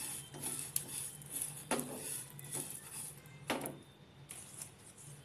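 Plastic spatula stirring whole coriander, cumin and fennel seeds as they dry-roast in a hot pan: irregular scrapes against the pan and rattling seeds, two of them louder, the stirring stopping about four seconds in.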